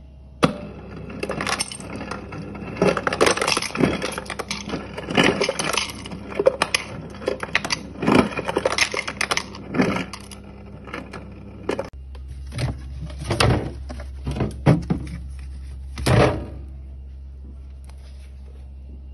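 Ice cubes dropping from a refrigerator door ice dispenser into a ceramic mug, clattering and clinking in quick irregular bursts. A steady low hum comes in about two-thirds of the way through, under the last few clatters.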